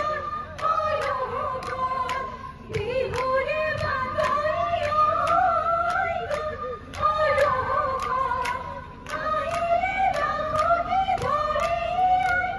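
A group of women singing a Bihu song in unison, the melody phrased with short breaths between lines, over sharp percussive clicks keeping a steady beat about two to three times a second.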